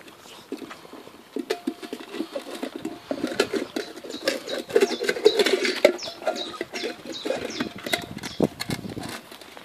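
A litter of Grand Basset Griffon Vendéen puppies eating raw meat from one metal bowl: many quick wet chewing and smacking sounds with clicks against the bowl, busiest in the middle.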